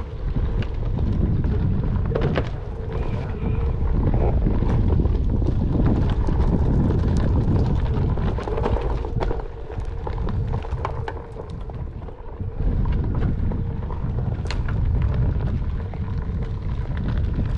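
Skateboard wheels rolling over a packed-dirt trail: a steady low rumble with scattered crackles of grit and twigs under the wheels, and wind on the microphone.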